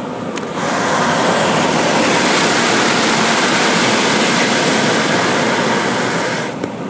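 Water spray from a car-wash pressure wand hissing loudly against the car. It starts about half a second in, holds steady and cuts off abruptly near the end.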